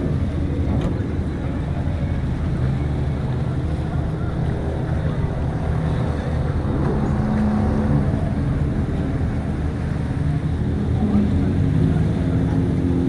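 Motorboat engine running steadily, with wind rumbling on the microphone.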